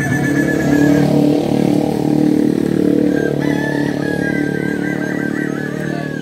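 Kukuak balenggek roosters crowing over a motorcycle engine running close by. One long crow ends about a second in, and another starts about halfway through and wavers up and down in steps to the end, in the tiered manner of this breed.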